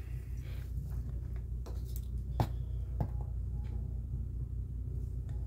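Small metal tools clicking against a 1977 Corvette dash clock as its hands are pulled off: four light clicks between about one and a half and three seconds in, the loudest near two and a half seconds, over a steady low hum.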